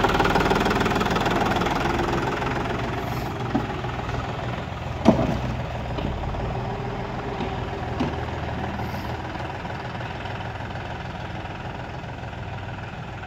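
John Deere 5310 tractor's three-cylinder diesel engine running as the tractor drives away, fading steadily with distance. A few sharp knocks, the loudest about five seconds in.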